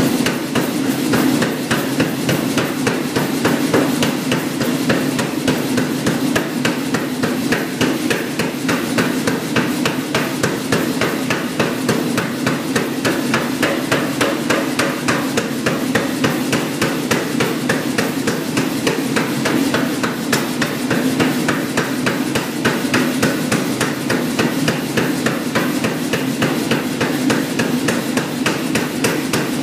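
Hammer blows on hot iron as a trumpet bar is forged, in a rapid, even rhythm that keeps going without a break, over a steady low hum.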